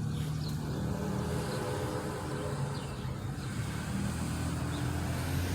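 Car engine running with road noise, heard from inside the car as it is driven: a steady low hum that shifts slightly in pitch.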